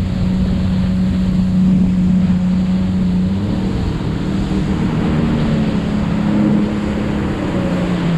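Jet ski engine running at a fairly steady speed, its pitch shifting slightly a couple of times, with wind buffeting the microphone and water rushing past.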